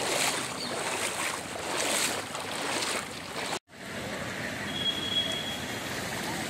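Floodwater sloshing and washing, swelling and easing in waves, then after an abrupt cut a steadier wash of water noise; a brief high steady tone sounds just past the middle of the second half.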